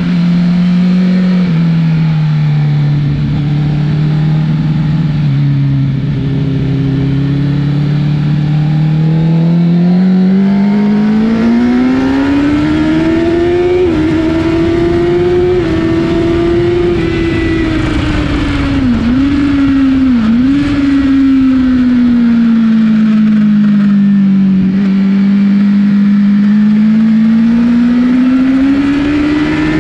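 Honda CBR1000 inline-four motorcycle engine under way, its note sinking low, then climbing steadily as the bike speeds up, easing off and climbing again. Two brief sharp dips in pitch come about two-thirds of the way through.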